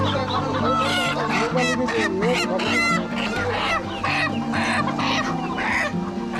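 Many live chickens clucking and squawking in crowded woven baskets, a dense jumble of short overlapping calls.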